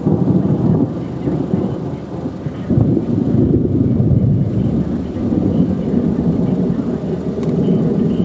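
Thunder rolling: a loud low rumble that breaks in suddenly and swells again about three seconds in.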